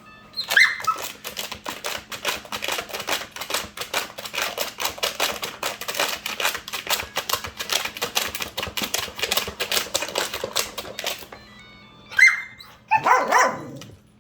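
Rapid, dense clicking and rattling for about ten seconds around a robot vacuum that a puppy keeps interfering with. Near the end comes a short electronic beep from the robot vacuum, then a brief puppy bark or yelp, over a faint steady motor hum.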